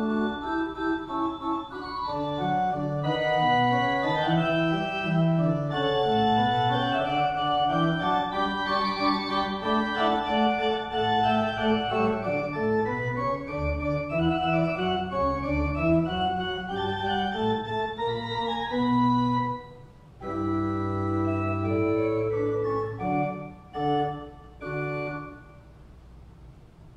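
Church pipe organ playing a flowing piece of many moving notes, which closes about three-quarters of the way in with a few separate held chords, the last dying away in the room.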